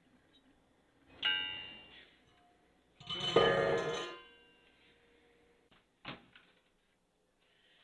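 Stainless-steel cookware clanking twice, about two seconds apart, each hit ringing on briefly; the second is louder and more of a clatter. A short click follows about six seconds in, as a kitchen cabinet door is opened.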